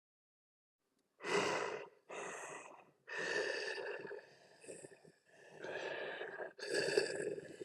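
Tusken Raider vocal effects: a string of harsh, breathy, grunting calls, each about a second long with short gaps between them, beginning after about a second of silence. The calls are sequenced like the 'sand people' chattering and arguing with each other.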